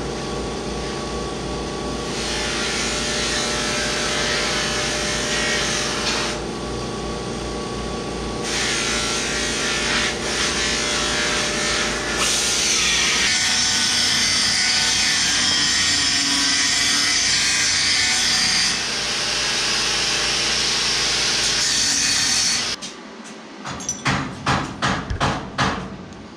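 A shop power tool running steadily, with a harsher hiss coming and going in three long stretches as it works the material. It then stops, and a quick series of sharp knocks follows.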